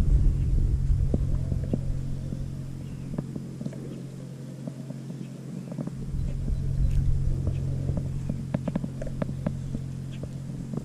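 Steady low hum of a boat's bow-mounted electric trolling motor, under a low rumble of wind on the microphone that eases for a couple of seconds midway, with a few light clicks now and then.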